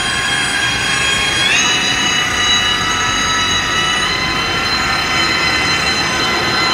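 Ronin power rope ascender's electric motor whining as it winches a tool bag up the rope under remote control. The high whine of several tones steps up in pitch about one and a half seconds in, and a little again about four seconds in.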